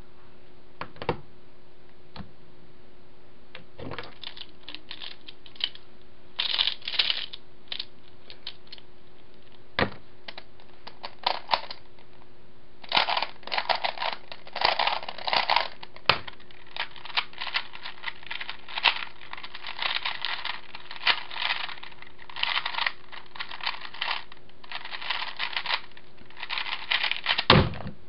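Plastic speed puzzles, a Pyraminx among them, being turned fast by hand: bursts of rapid clicking and rattling turns with short pauses, denser in the second half. A dull thump about a second before the end is the loudest sound.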